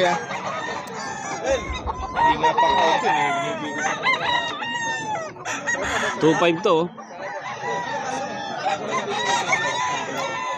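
Gamecocks crowing over one another, with hens clucking. Several calls overlap at once throughout.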